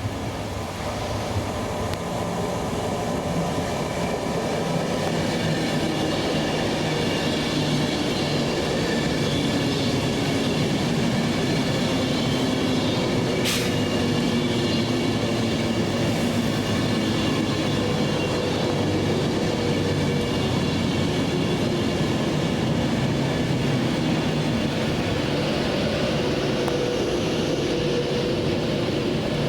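A train running, steady and loud after building up over the first few seconds, with several steady humming tones from its engine or traction equipment. There is a single sharp click about halfway through.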